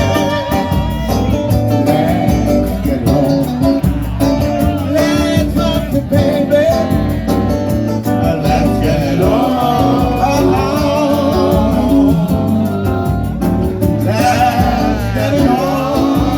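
Live band playing, with a singer over guitar accompaniment.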